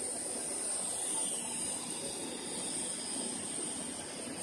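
Cast stretch-film extrusion line running: a steady, high hiss over an even machinery noise.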